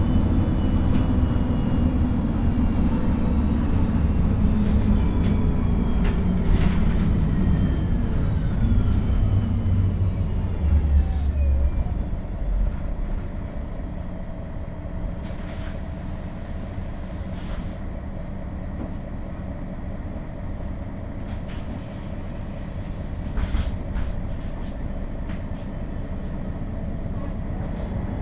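MAN NL 263 city bus's six-cylinder diesel drivetrain slowing down, with a whine that falls in pitch over about the first twelve seconds. It then settles to a steady idle, with a few sharp clicks.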